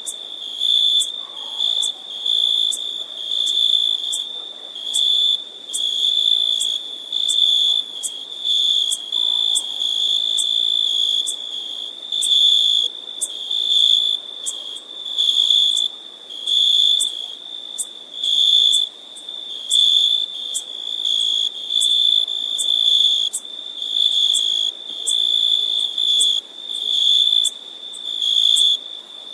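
Insect chirping: a high, single-pitched trill that swells and fades in pulses about every second or so, without a break.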